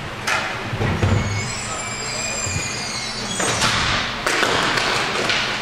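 Inline hockey play: sharp taps and a heavy thud about a second in, from sticks, puck and boards, over the steady noise of the rink.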